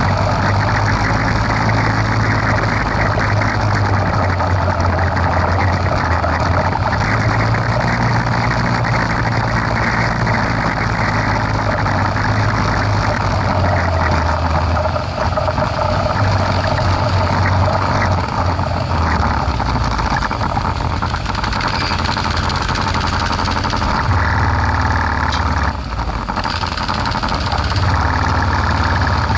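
ATV engine running continuously, its pitch shifting up and down as the throttle changes.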